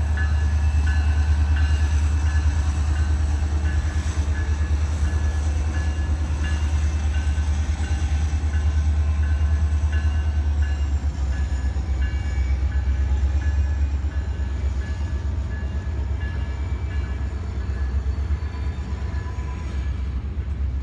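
A train rolling past, a steady heavy rumble with faint regular clicks of the wheels, easing off slightly in the last few seconds.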